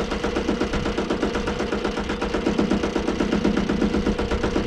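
The gas engine of a Woodmizer LT15 sawmill runs steadily with a fast, even exhaust beat, just after an easy cold start at 37 degrees.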